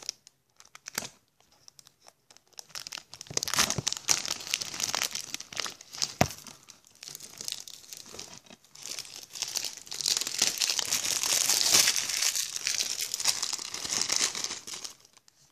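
Plastic shrink-wrap being torn and peeled off a DVD case: a dense run of crinkling that starts about three seconds in, grows heaviest toward the end and stops just before the end, with one sharp click midway.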